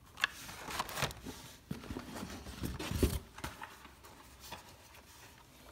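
Carded plastic Hot Wheels blister packs being handled and set down: crinkling plastic and card with light clacks, the loudest knock about three seconds in, then it goes quieter.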